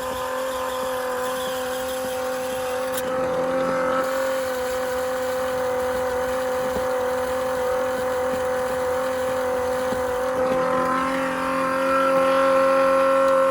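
A small electric motor running steadily with a high whine, rising slightly near the end, then switched off abruptly.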